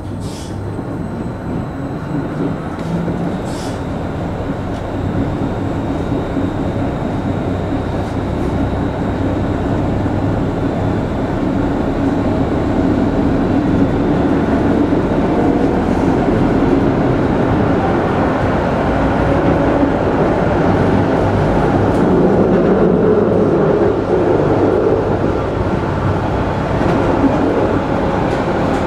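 Tram running on its rails: the rolling rumble grows steadily louder over the first dozen seconds or so as it gathers speed, then holds, with a faint shifting whine over it. There are a couple of light clicks near the start.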